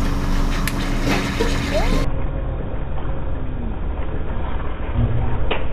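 Slurpee frozen-drink machine running with a steady mechanical hum while slush is pulled from its tap into a cup. About two seconds in, the sound turns duller and noisier.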